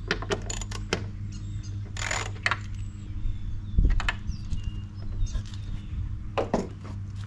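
Metal hand tool turning tail-light mounting bolts: scattered small metallic clicks and a few short rattling scrapes, over a steady low hum.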